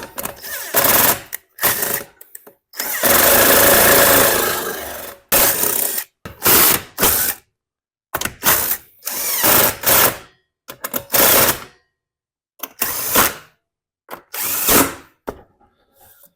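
Power drill-driver run in a string of short bursts and one longer run of about two seconds, driving in the fasteners as the mower engine's top parts are put back on.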